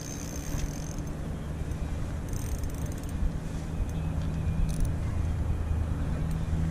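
A low, steady engine hum that grows a little louder after about a second, with a few faint high clicks over it.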